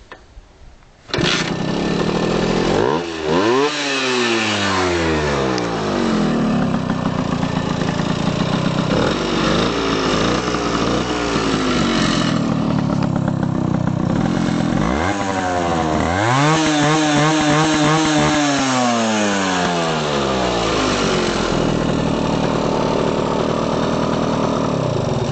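Sachs LKH two-stroke moped engine running, coming in sharply about a second in. It is revved up twice, briefly and then for several seconds, dropping back to idle each time.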